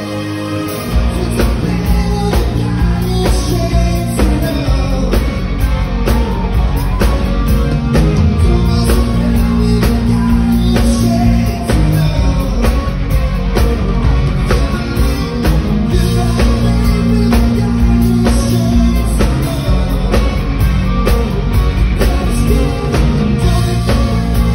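Live rock band playing with a male vocalist singing into a microphone; the drums and bass come in with a steady beat about a second in.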